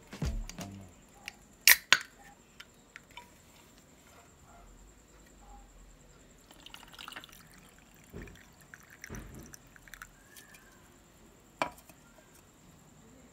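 A pull-tab aluminium drink can cracks open sharply, with a double click, about two seconds in. Later grape juice is poured from the can over ice in a glass mug, followed by a few light knocks of ice and can against the glass.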